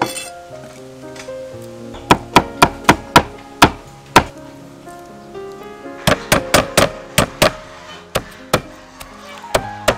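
Knife chopping on a wooden chopping board in quick runs of sharp strikes, about three to four a second, over background music with held melodic notes.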